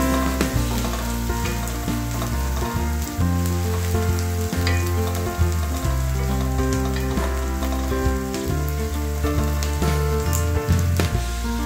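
Chopped onions sizzling as they fry in a pan, with a wooden spoon stirring them and scraping the pan now and then. Background music with held bass notes plays underneath.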